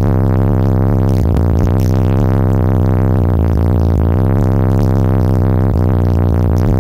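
Bass-heavy synthesizer music played loud through a car audio system of nine Resilient Sounds Platinum 15-inch subwoofers in a SoundCheck Customs sixth-order enclosure, heard inside the vehicle cabin. A deep, steady bass line dominates throughout.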